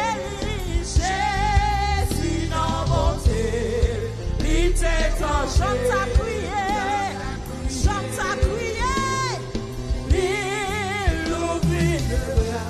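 A woman singing a gospel song into a handheld microphone with a wavering vibrato, over live band accompaniment with drums and bass.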